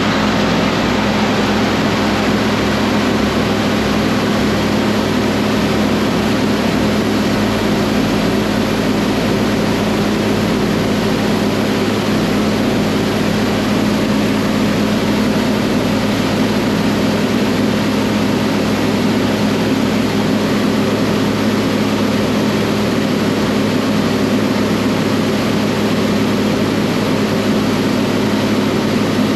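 Tractor engine running steadily on the road, a constant loud drone with a strong low hum.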